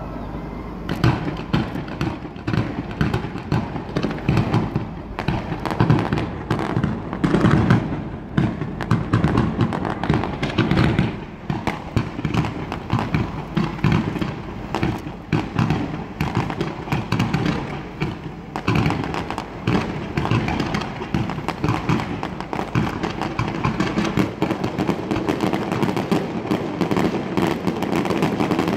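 Fireworks display: a dense, continuous barrage of bangs and crackles that starts about a second in.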